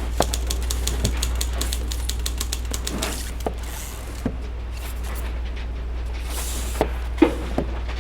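Old-fashioned office ambience: a steady low desk-fan hum under rapid typewriter key clacking for about the first three seconds, then two short paper rustles and a few scattered knocks near the end.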